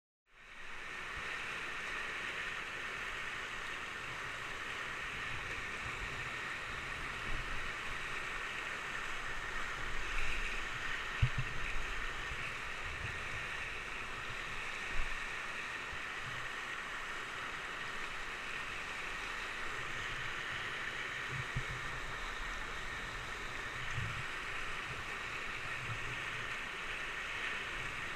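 Whitewater rapids rushing steadily around a kayak, heard from a camera on the boat, with a few dull low thumps now and then from the hull or paddle.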